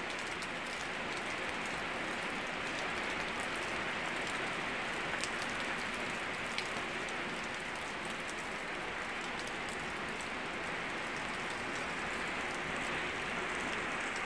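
Steady rain falling on leaves and ground: an even hiss with a few louder single drops ticking through it.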